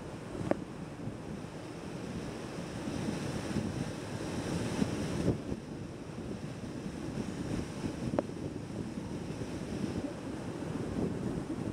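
Airflow rushing over a wing-mounted camera's microphone on an Atos rigid-wing hang glider in gliding flight: a steady low wind rumble, with a couple of faint clicks.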